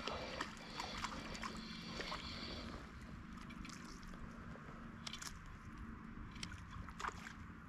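Spinning reel being wound, a faint whirr with small clicks, for the first few seconds, then low water sounds with scattered light clicks.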